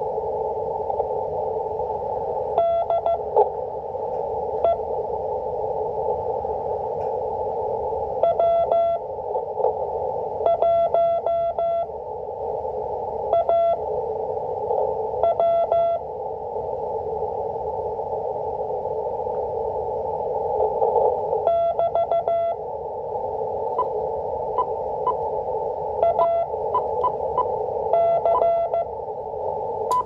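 Morse code practice transmission received on an Icom IC-718 HF transceiver in CW mode and heard through its speaker. A single steady tone is keyed in short groups of dots and dashes, a few seconds apart, over a constant hiss of band noise, with a few faint clicks of static.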